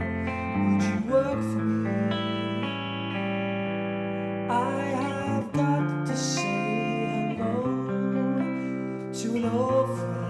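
Background music: a guitar-led song with a singing voice at times.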